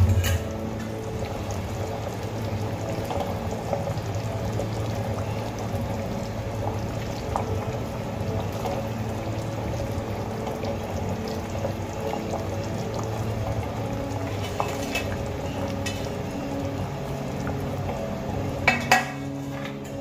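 Thin fish curry broth boiling hard in an aluminium karai as fried rohu pieces are added, a steady bubbling over a low hum. A sharp knock at the start and two quick knocks near the end, metal against the pan.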